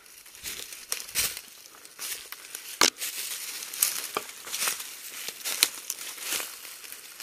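Footsteps crunching through dry fallen leaf litter, in irregular steps, with one sharper crack about three seconds in.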